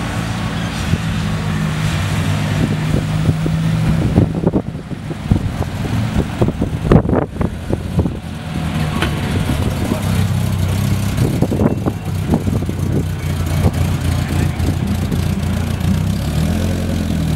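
Rally car engine running hard, its note holding steady and then shifting, with a few seconds of irregular knocks and rattles near the middle.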